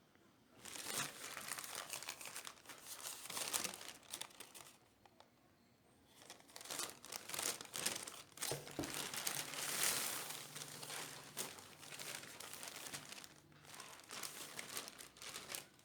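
Parcel packaging crinkling and tearing as a clothing parcel is handled and opened by hand, in two stretches with a pause of about a second about five seconds in.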